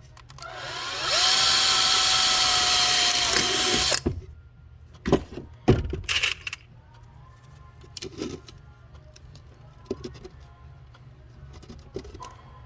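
Power drill spinning up and running steadily with a whine for about three seconds, drilling a rivet hole through the plastic leaf blower nozzle, then stopping suddenly. A few sharp knocks and clicks follow as the work is handled.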